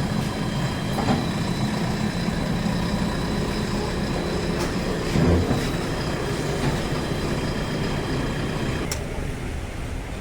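JCB 3DX backhoe loader's diesel engine running steadily. A few sharp clicks and a heavier knock about five seconds in sound over it, and it drops a little in level near the end.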